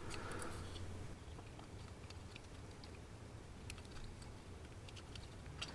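Faint, scattered small clicks of a plastic fan and its heatsink being handled and positioned, over a low steady hum.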